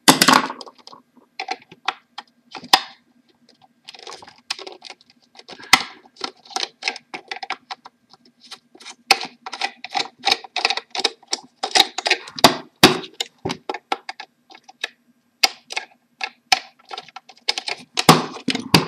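Small screwdriver turning screws out of a cheap plastic slow juicer's housing: many irregular light clicks and ticks of the driver in the screw heads and the plastic being handled. A faint steady hum runs underneath.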